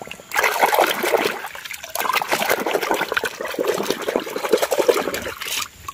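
Water splashing and sloshing in a plastic bucket as a hand scrubs a muddy toy car under the surface, with a short lull about two seconds in.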